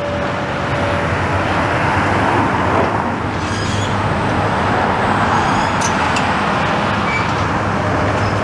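Road traffic passing close by, swelling and fading in the middle, over the steady low running of a long-reach demolition excavator's diesel engine.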